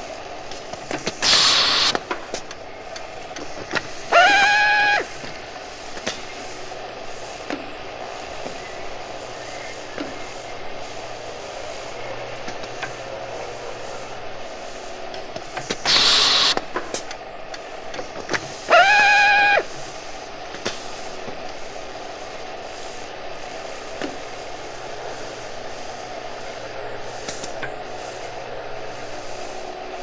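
Electric drill machine run in short spurts: a brief hiss, then about two and a half seconds later the motor whirs up quickly to a high whine, holds for under a second and stops. The pair comes twice, about fifteen seconds apart, over a steady background noise.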